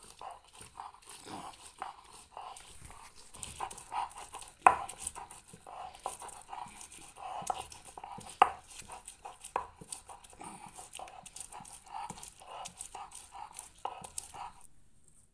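Stone roller of a Bengali shil-nora grinding stone scraping back and forth over a wet spice paste, in quick rhythmic strokes, with two louder knocks of stone on stone in the middle.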